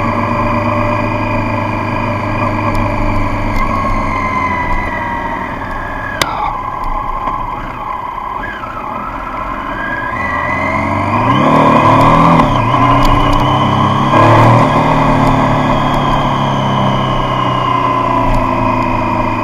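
Triumph Street Triple's three-cylinder engine running as the bike is ridden. Its pitch falls as it slows in the first half, with a single sharp click about six seconds in. About eleven seconds in the revs climb steeply as it accelerates, drop briefly around thirteen seconds, and climb again about fourteen seconds in before settling to a steady cruise.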